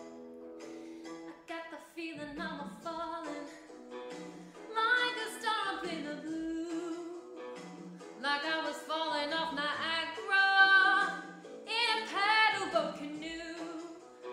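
A woman singing a song over an instrumental accompaniment. Her singing gets louder from about five seconds in, with long held notes.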